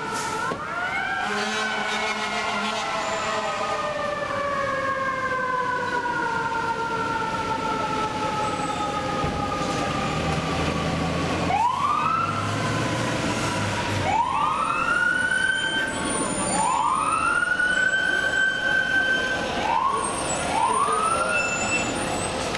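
FDNY fire apparatus sirens on a turnout. A long mechanical siren winds slowly down over the first half, then the sirens are wound up again and again, each rising quickly and holding. A deep steady tone sounds for a few seconds around the middle.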